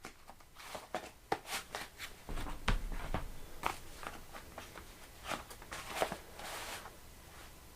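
A run of irregular sharp clicks and knocks, about a dozen, with the heaviest ones near three seconds and six seconds in and a short rustling swell just after.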